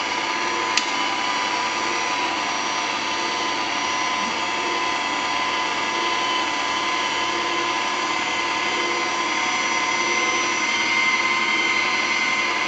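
Ron Popeil electric pasta maker running steadily, its motor humming and whining as it presses dough out through a tube-pasta die. A single small click comes about a second in.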